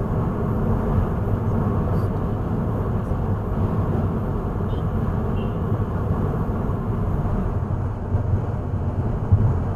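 Steady rumble of a car driving, road and engine noise heard from inside the vehicle by a dashcam.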